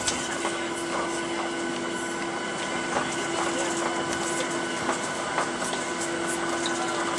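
Cabin noise of a Boeing 737-900ER taxiing, its CFM56 engines idling with a steady hum and whine, and occasional light clicks and knocks.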